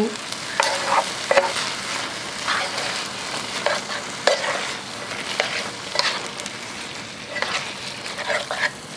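Spaghetti being tossed through sizzling tomato sauce in an electric skillet with a wooden spoon: a steady sizzle with irregular scrapes and clicks of the spoon against the pan.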